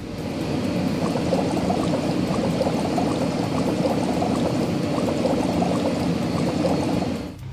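Cartoon sound effect of running, pouring water, a steady rush that starts abruptly and cuts off shortly before the end.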